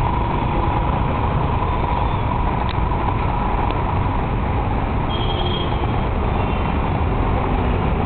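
Steady motor-vehicle noise: a constant low engine rumble mixed with road traffic, even in loudness throughout.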